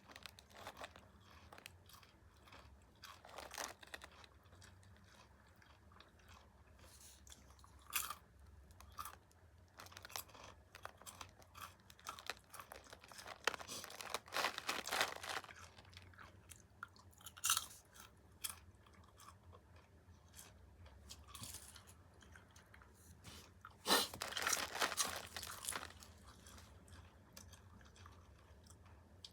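A person chewing and crunching popcorn, with quiet chewing between louder bouts of crunching, the longest about two-thirds of the way in.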